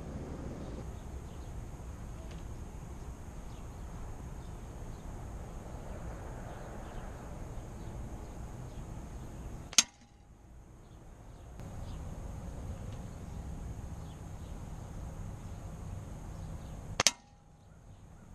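Two shots from an Umarex Viper Express .22 break-barrel air shotgun, sharp reports about seven seconds apart, over a steady outdoor background.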